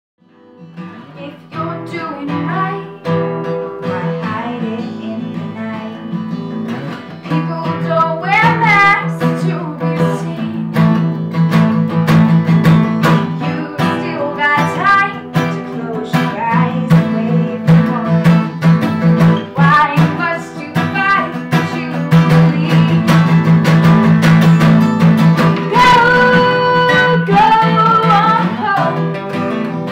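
Two acoustic guitars being strummed and picked together, fading in at the start, with a woman singing from about eight seconds in.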